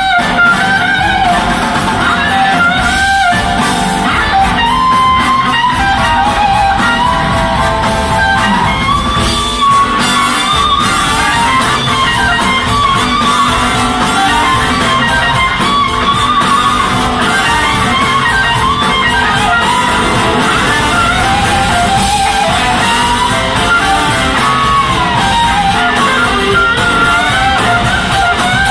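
Live blues-rock band with electric guitars, two drum kits and horns playing loudly, heard from the audience; a lead electric guitar line bends and glides over the band.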